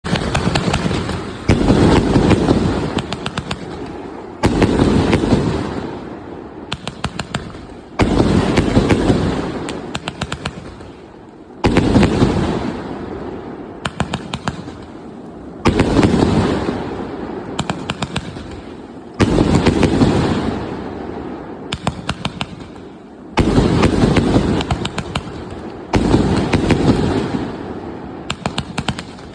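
A 130-shot firework cake firing: a loud burst every three to four seconds, each fading away with a spray of sharp crackles.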